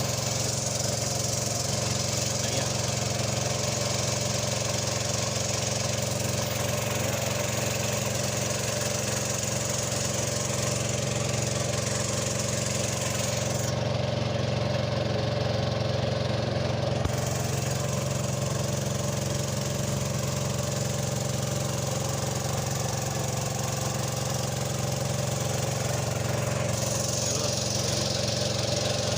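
A small engine running steadily at a constant speed, with no change in pitch or level.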